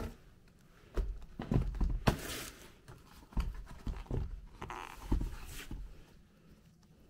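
Black leather Dr Martens Mary Jane shoes being handled and set down on a wooden floor: several dull thumps and knocks from their thick soles over a few seconds, with two short rustles of tissue paper.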